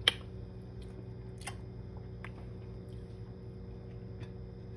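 A teaspoon knocking against a baking sheet as a spoonful of cookie dough is dropped onto it: one sharp click just after the start, the loudest, then two fainter clicks over the next two seconds, over a steady low hum.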